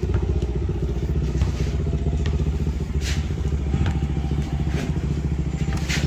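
A small engine running steadily at a fast, even idle, with a few light clatters and knocks over it.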